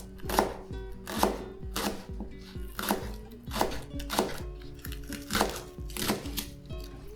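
Kitchen knife chopping spring onions on a chopping board, sharp cuts about one to two a second, over background music.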